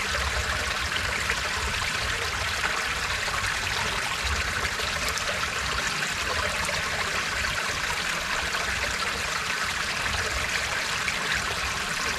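Steady rush and trickle of water spilling down a small irrigation dam into the canal pool below.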